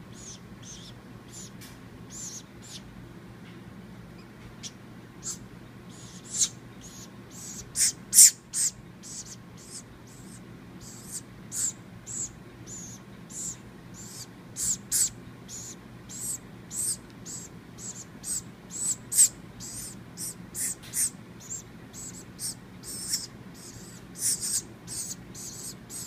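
Baby woodpecker giving short, high-pitched squeaky calls, begging to be fed. The calls are few at first, then come quickly and unevenly, about two a second, from around six seconds in.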